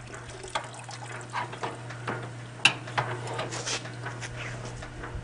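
Wash water siphoning out of the bottom of an old Kenmore wringer washing machine tub through a garden hose, with irregular trickles, drips and small clicks and one sharper click about halfway through. A steady low hum runs underneath.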